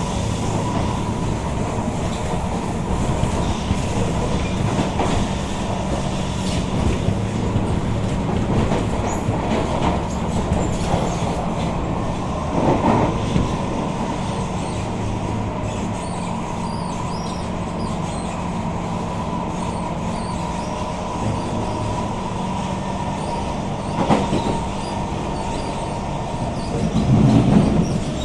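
Kawasaki Heavy Industries C151 metro train running, heard from inside the car: a steady hum with many small clicks and rattles, and a few louder knocks, the clearest about halfway through and near the end.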